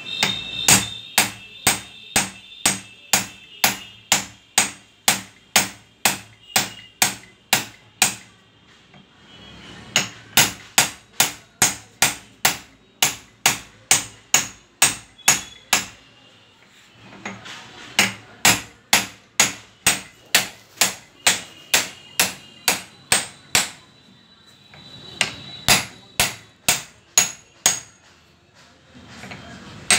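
Hammer blows on a steel gas mono-shock absorber clamped in a bench vise, struck in fast, even runs of about two to three blows a second with short pauses between runs. Some blows leave a high metallic ring.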